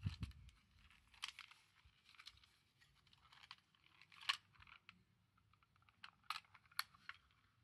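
Faint plastic clicks and light rattling of a T238 MkIII airsoft grenade's lever and fuse parts being handled as it is re-primed, with a sharper click about four seconds in and two more near the end.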